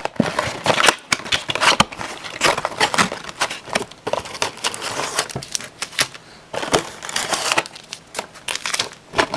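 A retail hockey card box and its packaging being torn open and handled: irregular crinkling, crackling and sharp snaps of cardboard and wrapper throughout.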